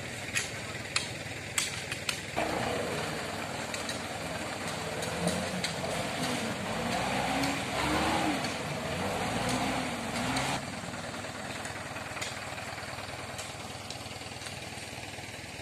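Diesel engine of a loaded palm-fruit truck revving up and down, its pitch rising and falling as it labours through slippery mud, then running more steadily and quietly from about ten seconds in. A few sharp knocks in the first two seconds.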